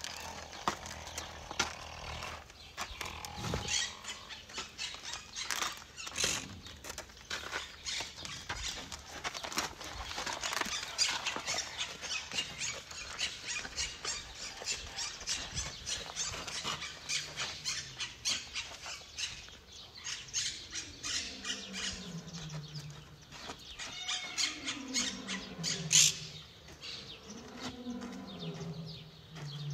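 White rhinoceroses moving on dry dirt, with crackling, scuffing noises of feet and bodies on the ground. In the last third, a run of drawn-out low calls, each falling in pitch, several in a row.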